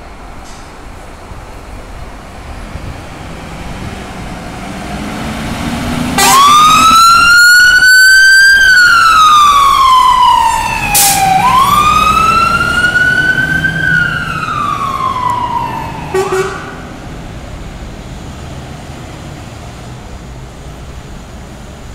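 Fire engine pulling out on a call: its engine noise builds, then its siren sounds a slow wail, rising and falling twice over about ten seconds, before cutting off suddenly. Road traffic noise remains after it.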